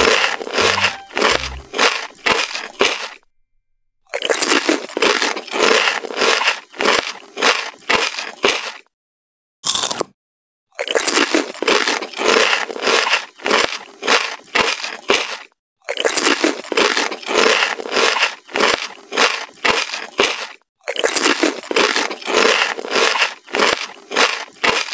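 Crunchy pork chicharon (fried pork rinds) being bitten and chewed close to the microphone: loud, crisp crunches at about three to four a second, in several bouts broken by short dead-silent gaps.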